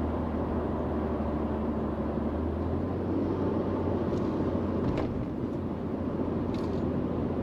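Steady engine and road noise inside a moving vehicle's cabin, with a strong low hum and a few faint clicks.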